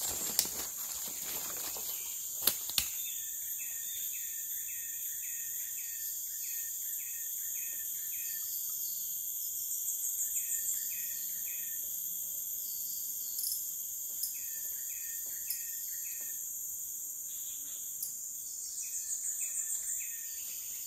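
Forest ambience: a steady high-pitched drone of insects, broken every few seconds by runs of four to six short chirps. A few sharp clicks and rustles of close handling noise come in the first three seconds.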